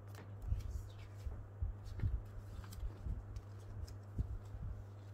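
Sheets of paper rustling and crackling as a printed letter and a voucher booklet are handled, with scattered soft thumps over a low steady hum.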